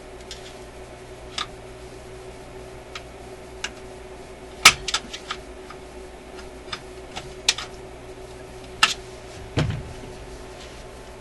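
Scattered clicks and taps of a screwdriver working at a stubborn screw in a tube radio's metal chassis, the loudest about halfway through and again near the end, with a dull knock just after. A faint steady hum runs underneath.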